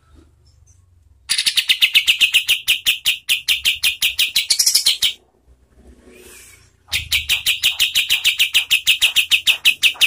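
Kapas tembak (olive-winged bulbul) giving its rapid-fire 'tembakan' song: a long run of sharp, evenly repeated notes at about eight a second, starting about a second in and lasting nearly four seconds. A second run like it starts near the seven-second mark.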